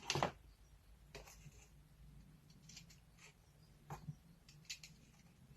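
Light handling of a rotary multi-tool and its small plastic parts: a few short clicks and taps, the loudest right at the start and a pair about four seconds in, with faint rustling between.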